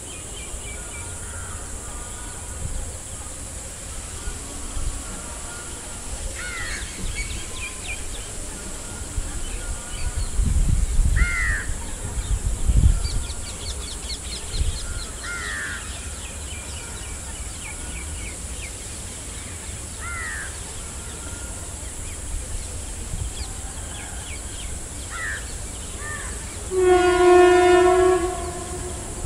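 WAG-5 electric locomotive sounding its horn in one loud, steady blast of about a second and a half near the end as it approaches. Before that, a bird calls over and over, about every four to five seconds.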